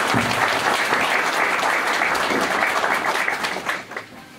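Small audience applauding with hand claps, dying away near the end.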